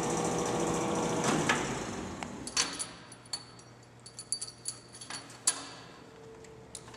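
DoAll vertical band saw running steadily in its low gear range at about 200 feet per minute. About two seconds in, its running noise fades away, leaving a faint low hum and scattered light metallic clicks and clinks.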